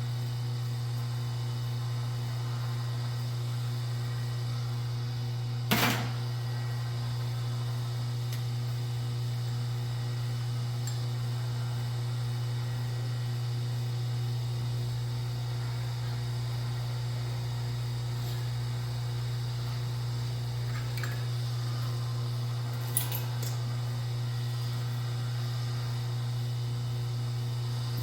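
Steady low electrical hum, with a sharp knock about six seconds in and a fainter click near the end.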